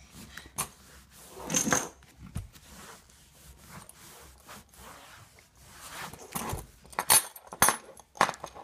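Metal buckles on a horse's girth clinking and rattling as the girth is handled, with cloth rustling; a quick run of sharp clinks near the end.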